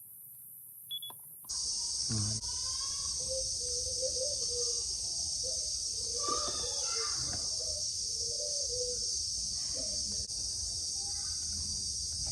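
A single short high electronic beep, then a steady hiss with a low hum that sets in suddenly and runs on, with faint, muffled voice-like sounds under it.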